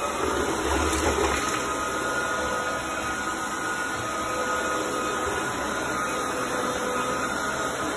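Roborock Dyad Pro wet-and-dry floor vacuum running steadily in auto mode: a motor hiss with a faint steady whine, and a slight low bump about a second in.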